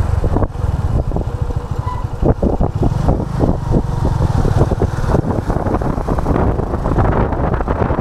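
Motorcycle engine running on the move, with gusty wind buffeting the microphone.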